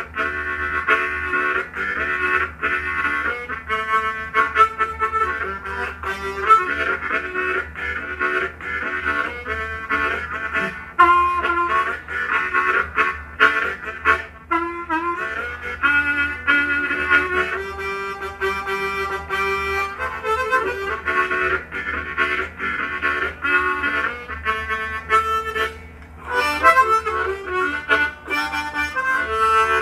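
Diatonic blues harmonica in G playing a train-imitation piece: rhythmic chugging chords broken by changing held notes.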